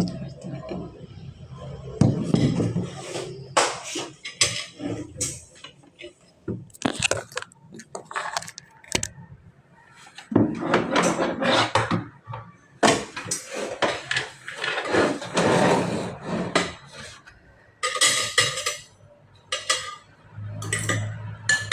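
Cutlery clinking and scraping against a plate during a meal: irregular sharp clinks, some in quick clusters.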